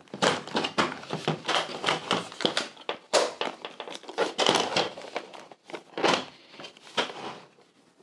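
Hands unsnapping the plastic latches of a Plano 3400 series dry box and lifting its lid: a quick run of plastic clicks, snaps and knocks that stops about seven and a half seconds in.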